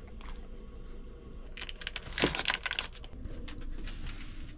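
Light clicking and tapping from a dog's food bowl being handled, with a denser run of clatter about two seconds in.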